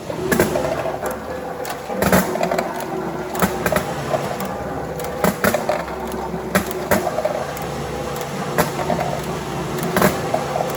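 Dog-treat counting machine and its conveyors running with a steady hum, overlaid with irregular sharp clicks and clatter of hard treats dropping and knocking through the system.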